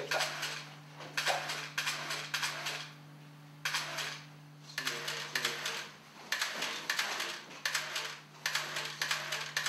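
Short mechanical clicking bursts, one to two a second with brief pauses, over a steady low hum.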